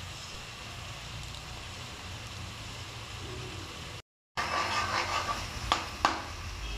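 A steady low hum, then after a short cut a metal spatula stirring and scraping chicken pieces in a steel wok, with two sharp knocks of the spatula against the pan near the end.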